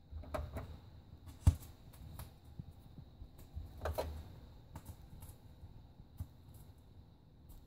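Stylus riding the lead-in groove of a spinning vinyl record before the music starts: faint surface crackle with scattered clicks and pops, one sharp pop about a second and a half in, over a low rumble and a thin steady high tone.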